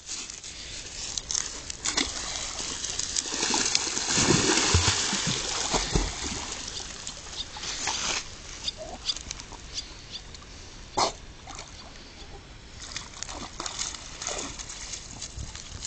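American pit bull terrier splashing into water and swimming. The splashing is loudest about four to six seconds in, followed by scattered smaller splashes as it paddles.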